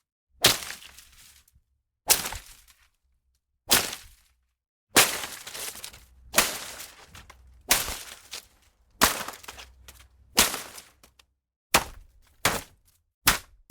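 A series of about eleven sharp hits into leafy plants and undergrowth, each a sudden swipe-and-strike followed by a brief rustle of leaves. They are spaced roughly a second and a half apart, then come quicker and shorter near the end.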